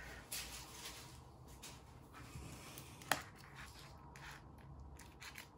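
Baking parchment paper rustling and crinkling faintly as it is gathered from around a baked casserole, with one sharp click about three seconds in.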